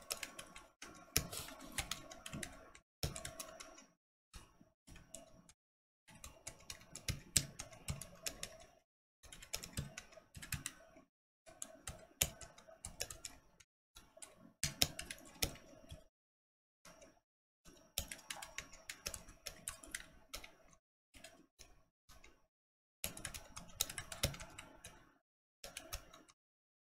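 Typing on a Corne V3.0 split mechanical keyboard fitted with silent linear frankenswitches (Black Boba bases, clear Gazzew tops, pink Bobagum silent stems, 55 g Gazzew springs): runs of rapid keystrokes broken by short, completely quiet pauses.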